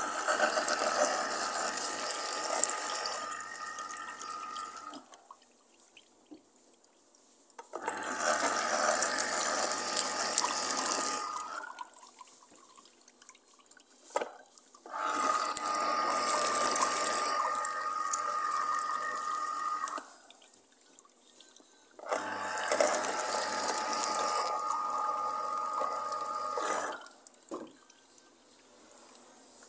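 Electric juicer juicing oranges, its motor running in four separate runs of about three to five seconds with quiet pauses between, each starting and stopping abruptly. Juice trickles from the spout into a glass.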